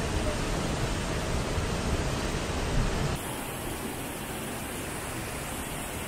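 Rushing white water of the Rhine Falls, a steady, even roar of falling and churning water. About three seconds in the sound changes abruptly to a steadier rush with less low rumble.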